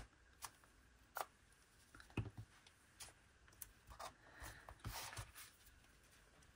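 Faint sounds of paper collage being handled: a few small clicks and taps from a glue stick and paper, and a soft rustle of paper being pressed and smoothed flat about five seconds in.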